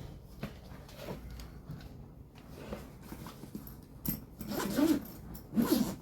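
A dog whining in short calls that bend up and down in pitch, about four seconds in and again near the end, over faint clicks of hand tools being handled.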